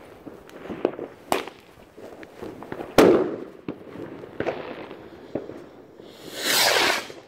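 Fireworks and firecrackers going off: scattered sharp cracks, one loud bang about three seconds in, and a hissing whoosh lasting just under a second near the end.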